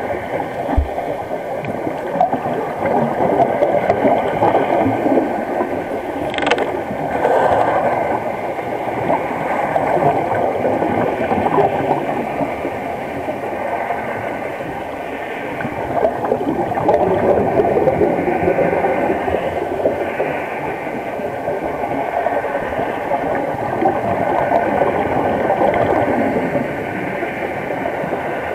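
Underwater sound of scuba diving: a regulator breathing and exhaled bubbles gurgling, swelling and fading every few seconds over a faint steady hum. There is a single sharp click about six seconds in.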